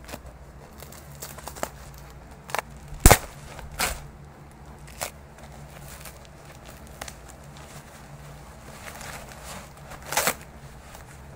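Plastic parcel wrapping being torn open and crumpled by hand: rustling and crinkling with a handful of sharp snaps, the loudest about three seconds in and another near the end.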